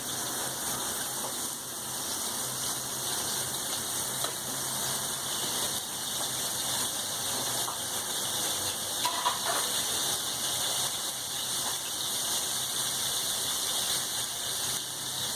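Rava and rice-flour-coated Bombay duck fillets sizzling steadily in hot oil in a pan, a constant hiss with a few small crackles, as the first side fries.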